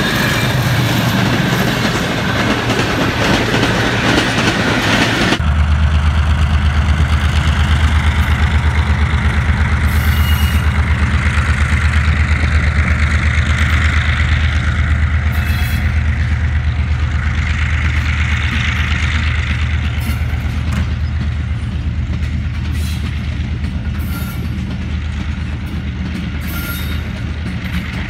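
Diesel-hauled passenger trains running by on the line. First comes a dense, loud rumble of a passing train. About five seconds in, a sharp change leads to a GMCU-15 diesel-electric locomotive pulling out, its engine a steady low throbbing drone that slowly fades as the coaches roll past with occasional clicks.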